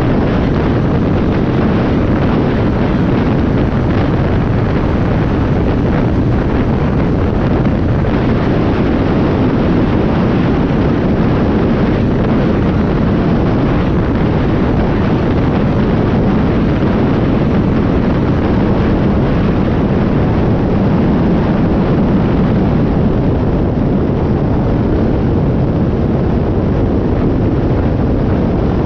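Side-by-side UTV driving at speed: a steady engine drone buried under heavy wind buffeting on the microphone, one loud continuous rumble.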